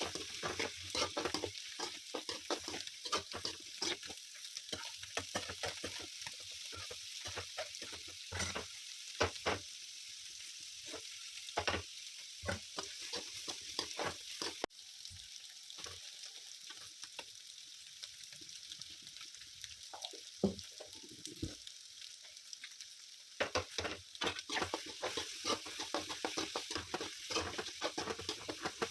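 Food sizzling as it fries in a pan, stirred with a spatula that clicks and scrapes against the pan. The stirring eases off for several seconds past the middle, leaving mostly the steady sizzle, then picks up again.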